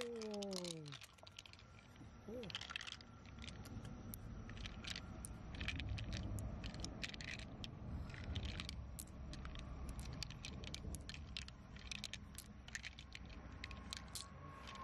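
Loose pearls clicking against one another as they are picked out of the mollusc's flesh and gathered in a hand: many small, hard, irregular clicks.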